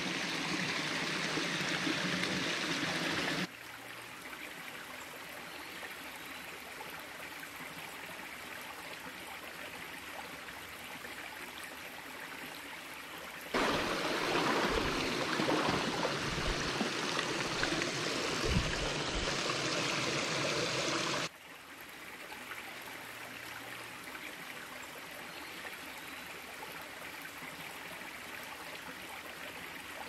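Small stream running and splashing over low rock ledges: an even rush of water with no other sound. It drops abruptly in level about three and a half seconds in, comes back louder about halfway through, and drops again about two-thirds of the way through.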